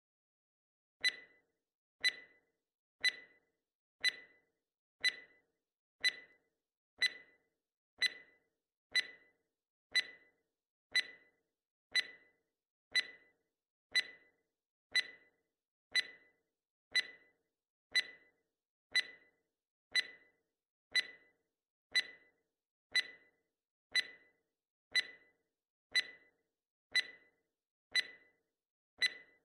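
Countdown timer sound effect: a sharp clock-like tick once a second, each with a short ringing tail.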